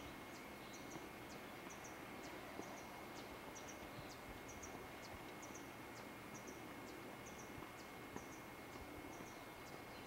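Faint natural ambience: a short, high animal chirp repeating evenly about once a second, with small ticks between, over a thin steady high tone.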